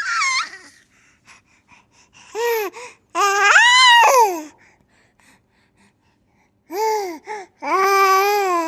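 Baby girl squealing and laughing: a short high squeal at the start, then several drawn-out high calls that rise and fall in pitch, with a pause of about two seconds before the last group.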